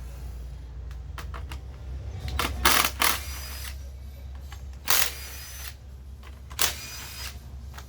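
Short rasping clicks and scrapes, three of them loud, as the petrol disc cutter's air filter and its cover are fitted back in by hand. A low steady hum runs under them.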